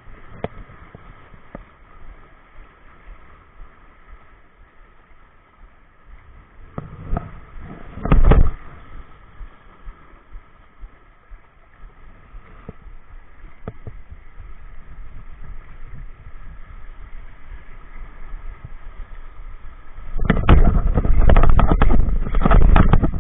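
Small waves washing and gurgling around shoreline rocks while a spinning reel is worked. There is one loud bump about eight seconds in, and over the last three seconds heavy rumbling knocks and buffeting on the microphone as the angler moves.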